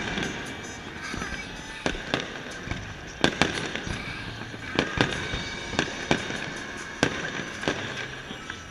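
Aerial fireworks exploding in a display: about ten sharp bangs at uneven intervals, roughly one a second, over a continuous background din.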